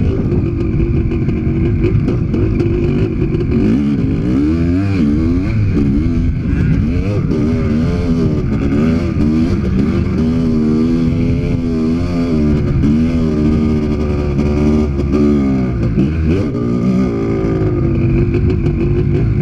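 Honda CR500's two-stroke single-cylinder engine under a rider's throttle, revving up and down repeatedly, steadier near the start and end.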